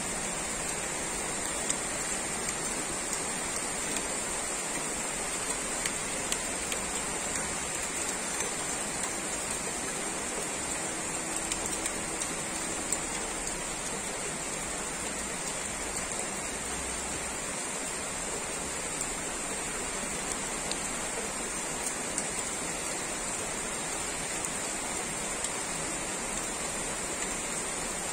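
Heavy typhoon rain pouring steadily: a dense, even hiss with scattered small ticks of drops.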